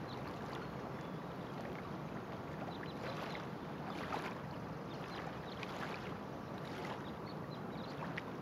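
Steady outdoor lakeshore ambience: an even hiss of wind and water, with faint short ticks scattered through it.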